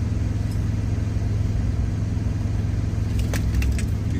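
Semi-truck engine idling, a steady low hum inside the cab. A few light clicks and knocks of jars and bottles being set down come about three seconds in.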